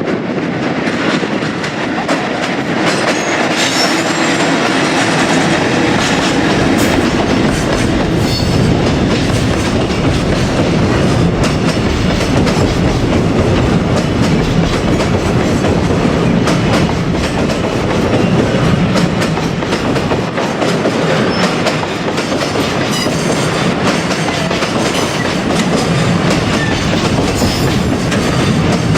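Long container freight train hauled by an ED76 electric locomotive, its wagons rolling past with a steady clickety-clack of wheels over the rail joints.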